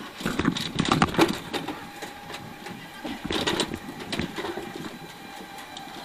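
Irregular knocks and clatter on corrugated metal roofing, heaviest in the first second and a half and again around three seconds in, over a steady engine hum.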